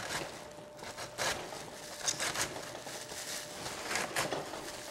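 Cauliflower being grated by hand on a grater into rice-sized bits: irregular rasping strokes.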